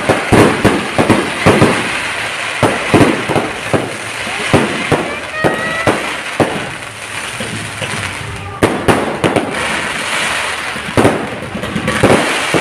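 Fireworks going off: a dense, irregular run of bangs and crackles, with a few short whistling tones around the middle and a sudden cluster of louder bangs about two-thirds through.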